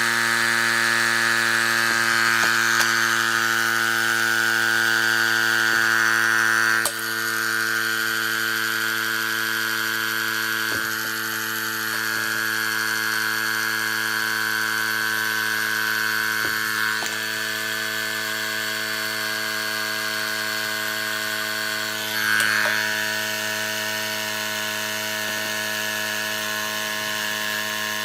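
Portable electric tire inflator buzzing steadily as it pumps up a 16x3 tire, with its cut-off preset to 32 psi, while the tire bead seats on the rim. A few light clicks sound along the way, and the buzz drops a little in level about seven seconds in.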